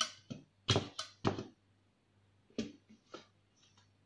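A knife blade scraping against the inside wall of a metal cake pan as it is run around a baked cake to loosen it: a series of short scrapes, five in the first second and a half, then two more about half a second apart.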